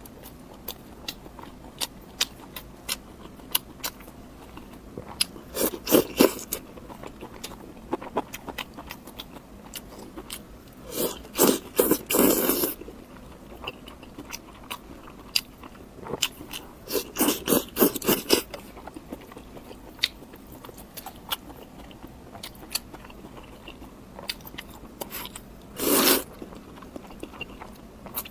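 Close-miked eating: crunchy bites and chewing, with many small sharp clicks throughout and louder crunching spells about four times.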